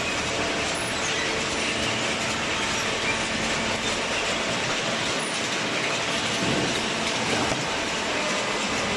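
Industrial cardboard baler running: a steady mechanical din with a faint hum under it, from the baling machinery at work.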